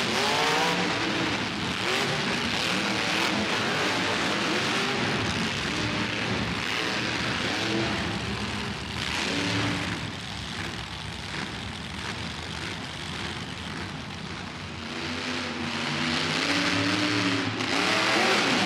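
Monster truck engine revving hard, its pitch rising and falling again and again, easing off in the middle and louder again near the end.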